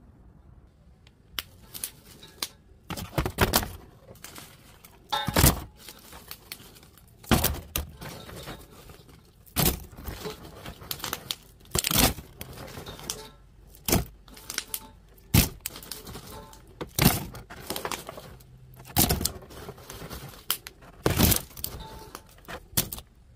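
A plastic carrier bag and a brown paper bag rustling and crinkling as they are handled and pulled open, in sharp bursts every second or two starting about a second and a half in.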